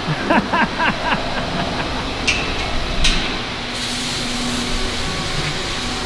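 Fabrication-shop background noise: a steady hiss with a couple of sharp clicks, the hiss growing brighter about halfway through.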